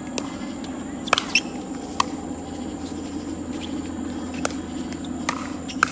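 Pickleball rally: paddles striking a hard plastic ball with sharp, irregular pops, about seven over a few seconds.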